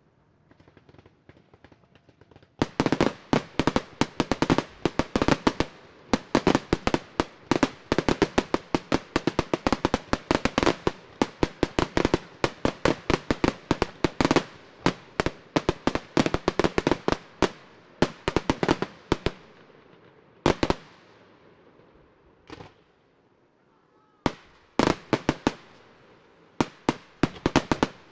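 Fireworks display: a rapid barrage of sharp bangs from bursting fireworks, starting about two and a half seconds in and running for some seventeen seconds. After that come a few lone bangs, then another quick volley near the end.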